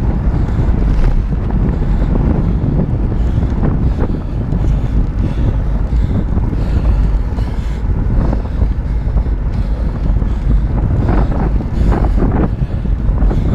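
Wind buffeting the microphone of a fast-moving camera: a loud, deep, continuous rush, with a few short knocks near the end.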